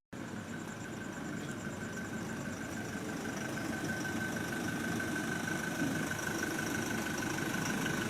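An engine idling steadily, with a constant high thin whine over a low rumble.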